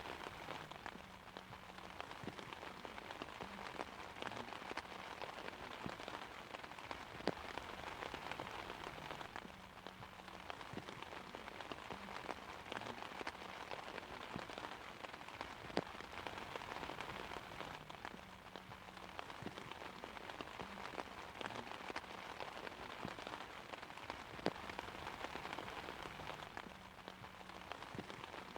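Steady rain falling on an umbrella: an even patter with scattered heavier drops tapping on the canopy now and then.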